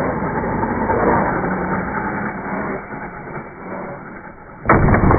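RC truck filmed in slow motion: a low, deepened running noise from its motor and wheels. About 4.7 seconds in comes a sudden heavy thud with a short rumble after it as the truck lands on the asphalt.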